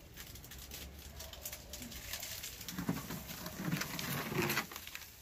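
Rustling and crackling of palm fronds and dry garden debris as a potted palm is handled at its base, busiest about three to four and a half seconds in.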